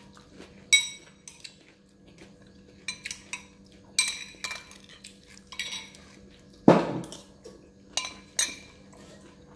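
Metal spoon clinking and scraping against a bowl of fried noodles as it stirs them: a series of short ringing clinks, with one louder, duller knock about two-thirds of the way in.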